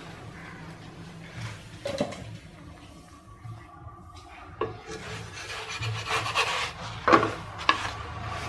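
Wooden spatula scraping and rubbing against a hot flat pan as it works under a thin pathiri flatbread to lift and turn it. It is mostly quiet at first with one tap about two seconds in, then scrapes from about halfway, with a few sharp taps of wood on the pan.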